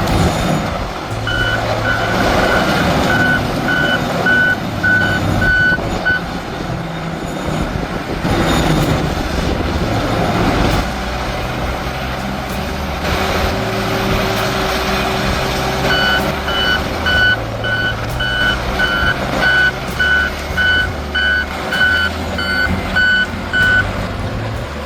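Reversing alarm on a heavy machine beeping about twice a second in two spells, over its engine running steadily.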